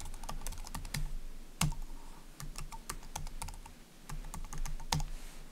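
Typing on a computer keyboard: a run of irregular key clicks with short pauses, a few strokes louder than the rest.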